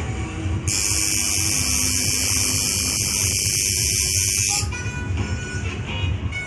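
Coil tattoo machine buzzing steadily while needling skin, switching on just under a second in and cutting off about four seconds later as it is lifted away. Background music plays throughout.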